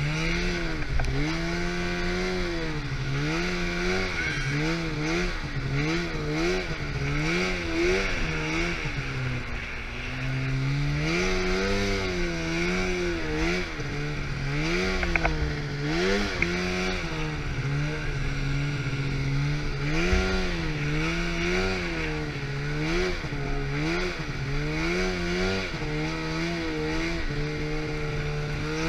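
Snowmobile engine being ridden through deep powder, its revs rising and falling about once a second as the throttle is worked, with a longer steady pull about ten seconds in.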